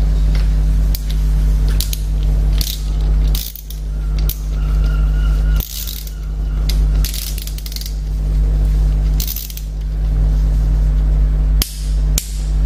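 Socket ratchet clicking in short runs as the rear brake caliper bolts are turned, over a steady low hum.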